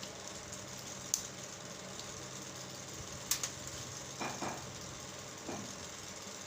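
Alexandrine parrot giving two short, quiet calls a little past the middle, over a steady mechanical hum, with two sharp clicks before them.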